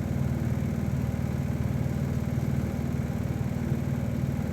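A steady, unchanging low hum, like a running fan or small motor, with nothing else happening.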